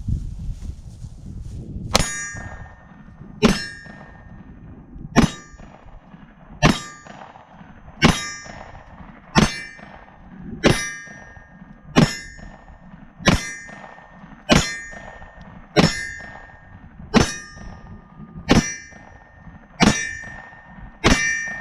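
Fifteen shots from a Glock 19 9mm pistol, spaced about one and a half seconds apart. Each shot is followed by the ring of a struck steel target: every round in the string hits.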